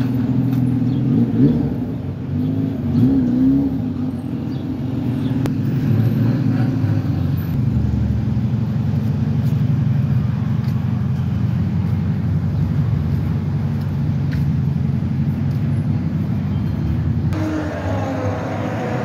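Motor vehicle engine running in street traffic, a steady low hum whose pitch wavers in the first few seconds; a broader rushing noise joins near the end.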